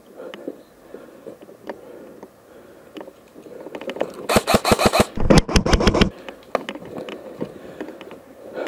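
Footsteps and gear rustling on grass and leaf litter. About four seconds in, an airsoft gun fires a rapid automatic string of sharp clicking shots that lasts nearly two seconds.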